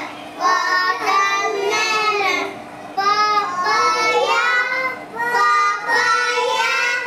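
Small children singing a song together in phrases about two seconds long, with short breaks between lines.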